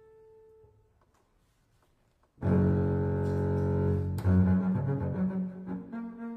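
Solo double bass, bowed. A held note fades away, and after a short pause a loud low note comes in suddenly and sounds for about two seconds. A quick run of notes follows, settling on a higher held note.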